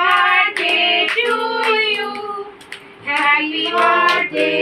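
A child and a woman singing together, in two phrases of held notes with a short break between them.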